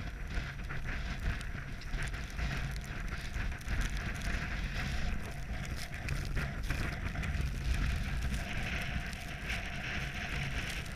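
Wind buffeting the camera microphone as a steady low rumble, with a hiss and many scattered crackles and crunches over it.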